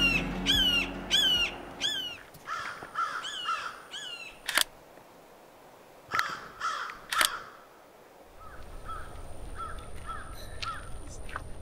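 Red-shouldered hawk calling: a series of loud, down-slurred kee-ah screams about two a second, then fainter, shorter runs of the same call that trail off. Two sharp clicks fall between the later calls.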